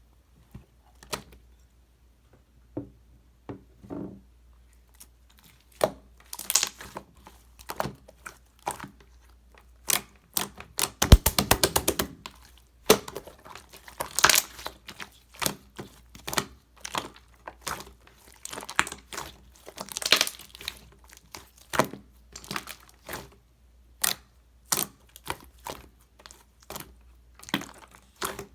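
Bouncy milk slime being squeezed, pressed and stretched by hand, making irregular wet pops, clicks and crackles as trapped air bursts. About eleven seconds in, a quick run of crackles comes close together.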